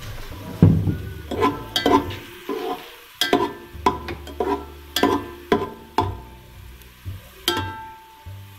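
Metal ladle knocking and scraping against a metal pot while stirring garlic and ajwain frying in oil. A dozen or so irregular clinks that ring briefly, over a light sizzle.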